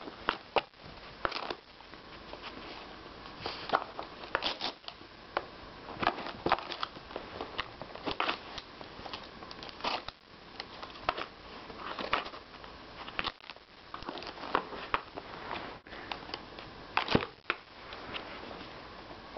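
Gift-wrapping paper crinkling and tearing as a Bichon Frise paws and bites at a wrapped box, in short irregular rips and crackles.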